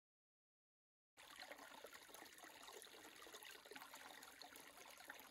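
Faint trickling of a shallow creek running over rocks, starting abruptly about a second in.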